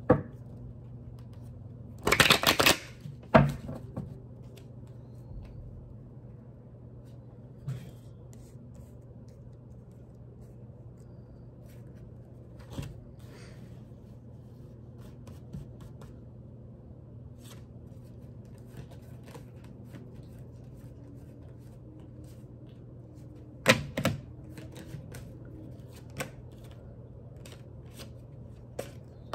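Tarot cards being shuffled and handled: a loud burst of shuffling about two seconds in and a sharp snap just after, then scattered soft flicks and taps of cards, with a few more near the end. A steady low hum runs underneath.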